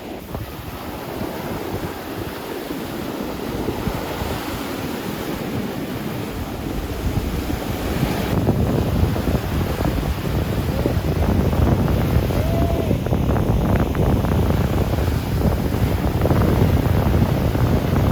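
Wind gusting across the microphone over the steady wash of sea surf, growing louder about halfway through.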